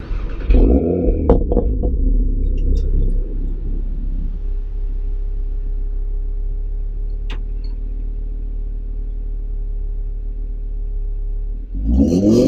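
2018 Audi RS3's turbocharged 2.5-litre five-cylinder engine running. Engine speed rises and falls in the first two seconds, then settles to a steady idle, and the engine is revved again near the end.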